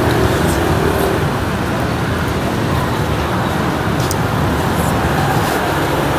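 Steady street traffic noise from motorbikes on the road, with a few faint light clicks.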